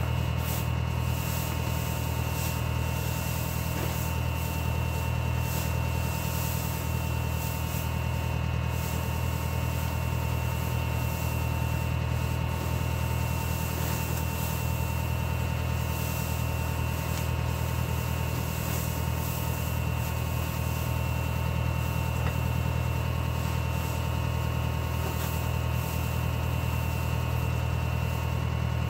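Pitchfork scraping and rustling through straw bedding in short strokes, over a steady low mechanical hum.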